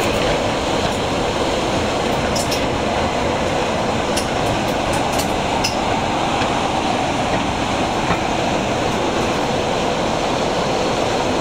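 Diesel-hydraulic locomotive hauling a train at speed, heard from a window close by: a steady engine and rolling rumble with rushing air. A few light clicks from the wheels come through in the middle.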